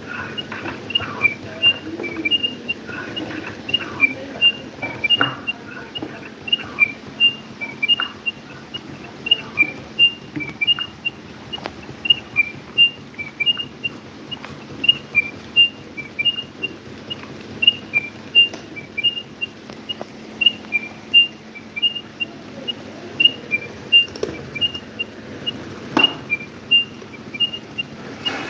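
A steady series of short, high-pitched chirps, about two or three a second, alternating between two close pitches. Near the end there is one sharp click.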